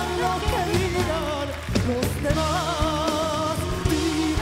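Live music: a male singer with a flamenco-tinged voice holds long notes with a wide vibrato over a band accompaniment with a steady beat.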